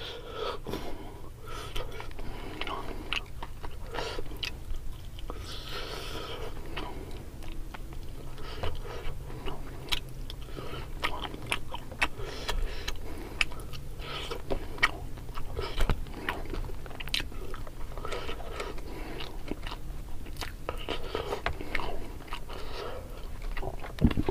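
Close-miked chewing of mujair (tilapia) fish and rice, with many small sharp mouth clicks and crunches coming irregularly throughout.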